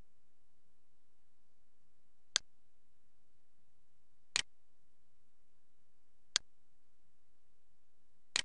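Four short, sharp clicks, evenly spaced two seconds apart, over a faint steady hiss.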